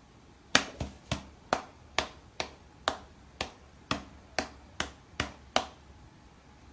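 A series of about thirteen sharp clicks or taps, evenly spaced at a little over two a second, stopping about a second before the end.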